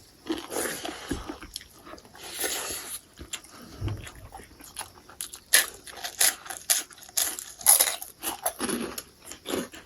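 Close-up eating sounds: a person biting and chewing food, with irregular crunches and smacking.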